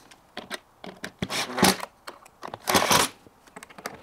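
A cordless drill driver running in two short bursts, about a second and a half in and again near three seconds, driving hinge screws into the pre-drilled holes of a chipboard cabinet door panel. Light knocks and clicks of the drill and hinge being handled come between the bursts.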